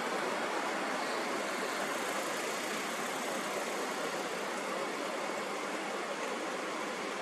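Steady, even rushing noise like pink noise, with no rhythm or separate events.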